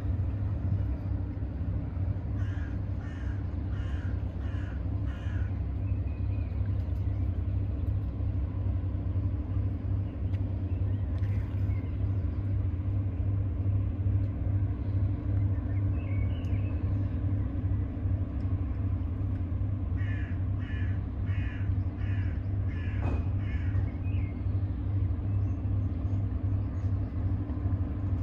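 Steady low rumble with a bird calling over it in two runs of repeated calls, about two a second: five or six calls a few seconds in and six or seven more about twenty seconds in.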